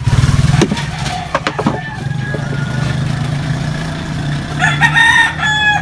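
An engine running steadily with a low hum, with a few knocks in the first two seconds and a rooster crowing near the end.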